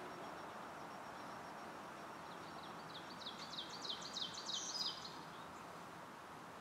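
A bird singing a quick run of about ten short, high notes, each sliding downward, lasting about two and a half seconds and starting a couple of seconds in, over a steady outdoor background hiss.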